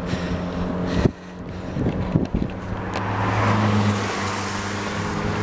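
Road traffic going past on a wet road: a steady engine hum, with tyre hiss swelling about three seconds in as a car comes by. A single knock about a second in.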